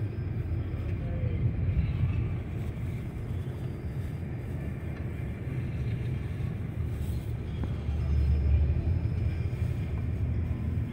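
Steady low rumble of an intercity bus in motion, heard from inside the cabin: engine and road noise, growing a little louder about eight seconds in.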